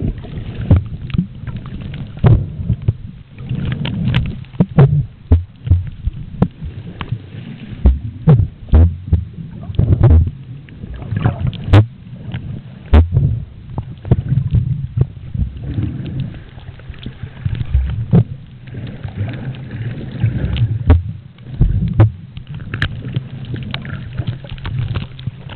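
Muffled underwater sound picked up by a camera below the surface: a low rumble of moving water, broken by frequent irregular clicks and knocks.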